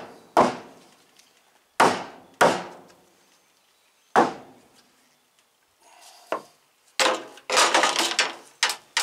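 Claw hammer striking wooden barn framing, driving a wooden block into place to raise a sagging roof: four sharp blows in the first four seconds or so, each dying away quickly. Near the end, a couple of seconds of scraping, rubbing and knocking.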